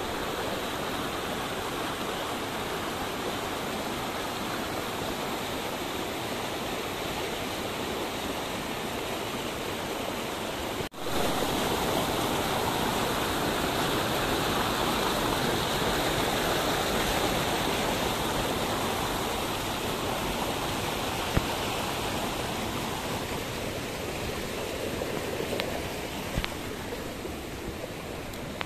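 A small rocky creek in flood, its muddy water rushing and splashing over boulders and little drops in a steady roar of water, swollen after a night of heavy rain. The sound breaks off for an instant about eleven seconds in, then carries on a little louder.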